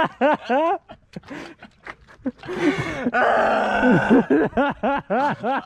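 Wordless excited cries and groans of relief: a string of short yells rising and falling in pitch, with a long breathy sigh about three seconds in.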